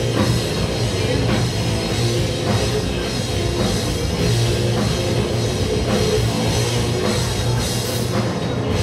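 Post-hardcore band playing live: electric guitars, bass, keyboard and drum kit in a dense, loud rock passage with steady drum hits.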